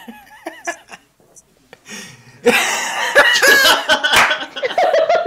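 People laughing, quietly at first and then breaking into loud laughter about two and a half seconds in.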